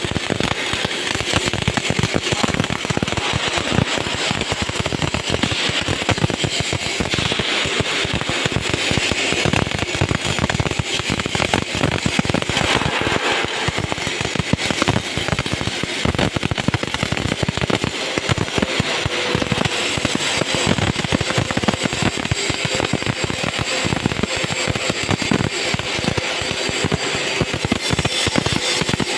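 Electric arc welding: the arc burning steadily with a dense, continuous crackle and sputter.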